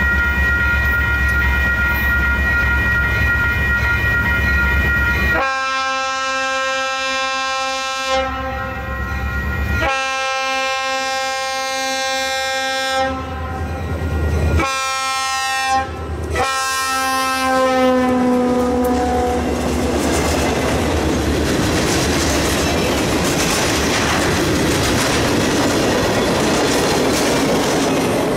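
Diesel locomotive MEC 305 approaching with a steady tone over a low rumble, then sounding its horn in the grade-crossing pattern: two long blasts, a short one and a long one that drops slightly in pitch. The train then passes with a steady rumble and clatter of wheels on rail.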